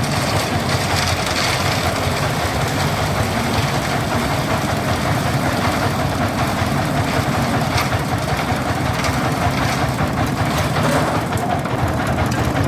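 Stationary engine of concrete-pouring machinery running steadily at one speed, with a continuous mechanical clatter.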